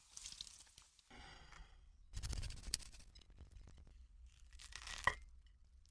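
Crispy chicken being torn apart: uneven crackling and tearing of the crust, with a louder stretch about two seconds in and one sharp crack about five seconds in.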